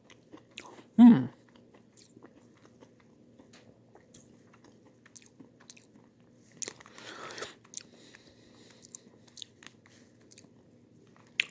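Someone chewing and crunching a piece of candy in the mouth, with small scattered mouth clicks. About a second in, a short falling hum of the voice, like a brief "mm".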